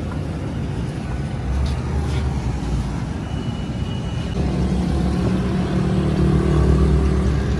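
Tractor engine running steadily, its low note growing stronger about a second and a half in and again near the middle.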